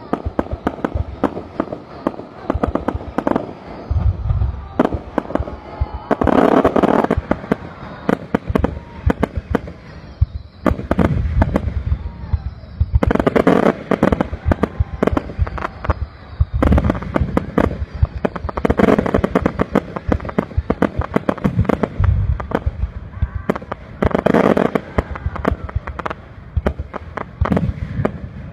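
Aerial fireworks display: a rapid, continuous barrage of bangs and pops from bursting shells, with denser, louder clusters about every five to six seconds.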